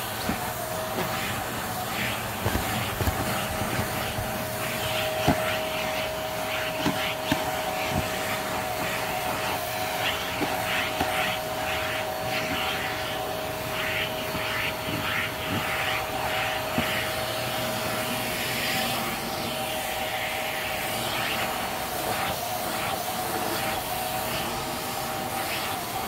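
Hart Pro bagless upright vacuum running steadily with a constant whine, its nozzle tool sucking and rubbing in short irregular strokes across leather upholstery, with a few sharp clicks in the first several seconds.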